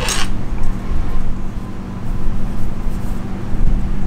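A short clack of tools being handled at the very start, then a steady low background rumble with no clear sharpening strokes.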